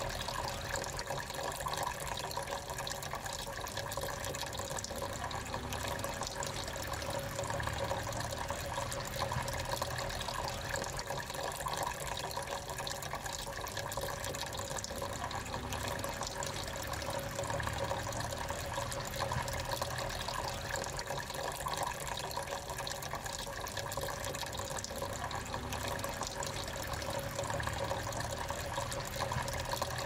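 Small tabletop water fountain running: water trickling steadily from one pot to the next and splashing down into a pebble-filled basin.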